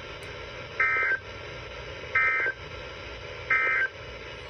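Emergency Alert System end-of-message data signal: three short bursts of warbling digital data tones about a second and a half apart, over faint steady radio hiss. It marks the end of the broadcast warning.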